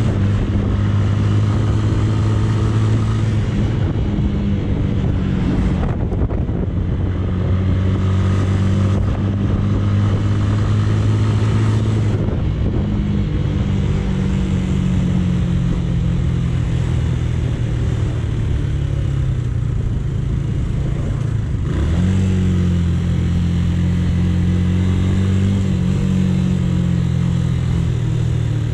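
A Romet K125 125cc motorcycle engine running while riding. The note drops and climbs again several times as the rider shifts gears, then falls away near the end as the bike slows.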